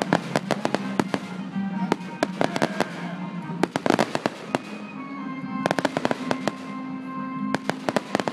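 Fireworks going off in rapid volleys of sharp pops and bangs, coming in several dense clusters, with music playing underneath.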